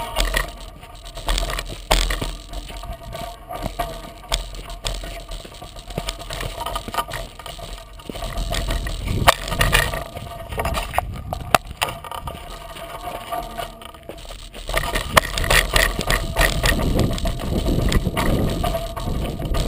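36-inch Coker unicycle tyre rolling down a rocky dirt trail, picked up by a GoPro mounted on the unicycle. A steady stream of knocks and rattles sits over a low wind rumble, and grows louder and rougher about three-quarters of the way through.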